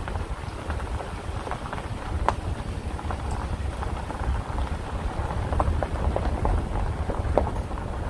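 Ford F-150 pickup driving on a dirt and gravel road: a steady low rumble with many scattered crackles and ticks from gravel under the tyres.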